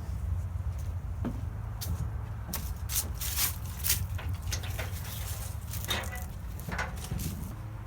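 Handling noise from working at a rain gutter: a scatter of short clicks and light scrapes, most of them between about two and a half and seven seconds in, over a steady low rumble.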